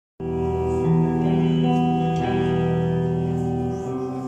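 Live rock band playing an instrumental intro: amplified guitars ring out in sustained chords that start abruptly just after the beginning and change about two seconds in and again near the end.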